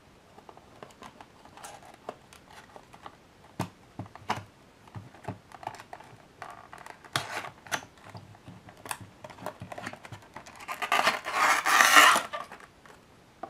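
Small cardboard model box being handled and opened: scattered taps and scrapes, then a louder rustle of a clear plastic tray sliding out of the box, lasting about a second and a half, near the end.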